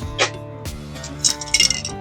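Background instrumental music: sustained notes changing in steps, with bright clinking hits that cluster near the end.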